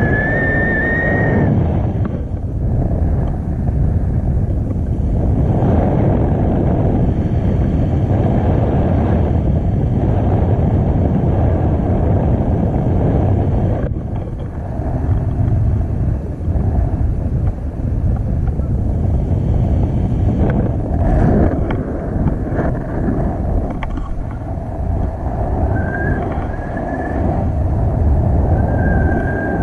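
Wind rushing over the microphone of a camera held out from a tandem paraglider in flight, a steady low rumble with small surges. A thin whistling tone rises briefly at the start and comes back near the end.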